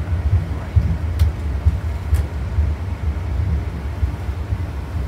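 Steady low rumble inside a Boeing 787 flight deck as the airliner rolls along a wet runway after landing, with a couple of faint clicks about one and two seconds in.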